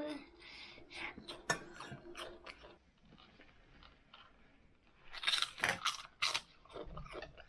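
Prawn crackers being crunched and eaten: irregular crisp crunches, with a louder cluster about five to six and a half seconds in.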